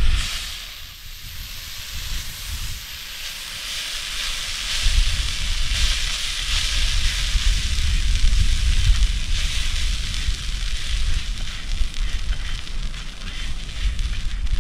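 Green beans, calabresa sausage and onion farofa sizzling in a hot plough-disc pan, a steady hiss that grows louder about four seconds in. Wind rumbles on the microphone underneath.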